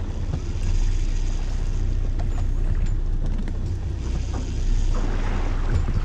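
Fishing boat's engine running, a steady low rumble, with a brief hissing rush about five seconds in.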